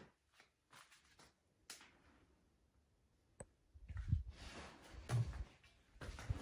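Irregular rustling, scuffing and dull knocks of someone moving about close to the microphone, sparse at first with a sharp click about three and a half seconds in, then busier in the second half.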